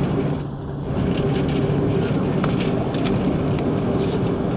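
Airbus A330-300 cabin noise on the ground: a steady hum of the engines at idle, with a few steady tones in it and some light clicks.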